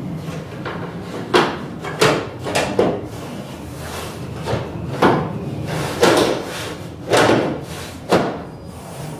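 A wall cabinet knocking and thumping against the wall and its metal hanging rails as it is pressed and shifted into position, about eight sharp knocks at irregular intervals.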